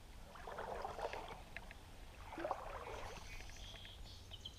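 Two soft swishes of stream water, about half a second in and again between two and three seconds, over faint outdoor background. Near the end a bird gives a quick run of short, high chirps.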